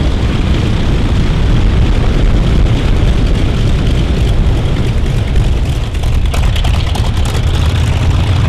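Vought F4U Corsair's Pratt & Whitney R-2800 radial engine running at low taxi power, a deep, uneven rumble with its propeller turning.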